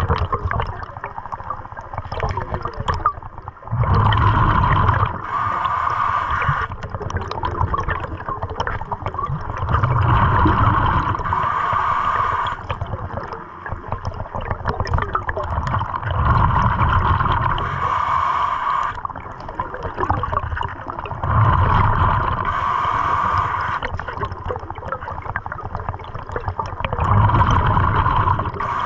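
Scuba diver breathing underwater through a regulator: a hiss on each breath and a rush of exhaled bubbles, in a steady cycle of about five breaths, one every five to six seconds.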